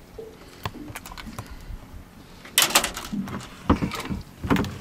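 Clicks and knocks of a snapper being unhooked from a longline trace and handled in the boat, with a louder burst of clattering about two and a half seconds in and more knocks near the end.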